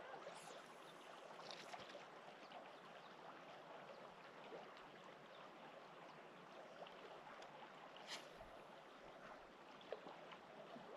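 Near silence: a faint steady outdoor hiss of lakeside water and air, with a soft click about eight seconds in.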